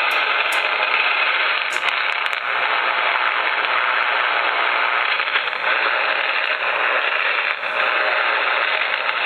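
HF band noise from a FlexRadio 6600M amateur radio receiver: a steady static hiss through its speaker, cut off sharply above about 4 kHz by the receive filter.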